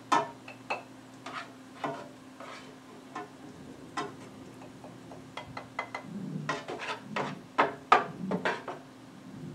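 Metal tongs clicking and scraping against a skillet and plate as cooked asparagus spears are lifted out of the pan, a run of irregular clicks and clinks over a faint steady hum.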